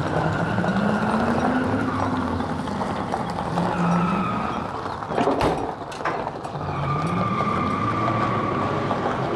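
Pickup truck engine pulling away twice, its pitch rising each time, with tyres crunching over gravel and an empty utility trailer in tow. A couple of sharp knocks from the trailer come around the middle.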